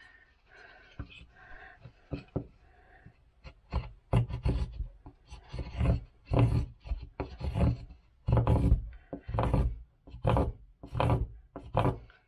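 A small hand file rasping a wooden block in repeated scraping strokes. The first few seconds hold only light handling, then the strokes start about four seconds in, at roughly one to two a second.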